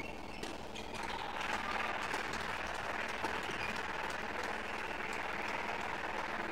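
Spectators applauding the end of a badminton rally. The clapping starts about a second in, just after a single sharp knock, and carries on steadily.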